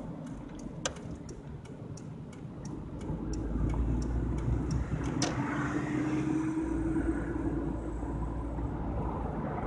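Car turn-signal indicator ticking about three times a second inside the cabin, stopping about five seconds in. The engine and road noise then grow louder as the car pulls away and gathers speed, with a faintly rising hum.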